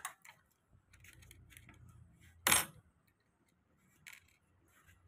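Small metal nuts and washers clinking as they are handled and set down on a plastic tabletop, with one louder metallic clatter about two and a half seconds in.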